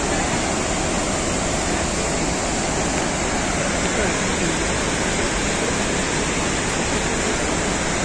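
Kuntala Waterfall's water falling and rushing, a steady, even wash of noise that does not change.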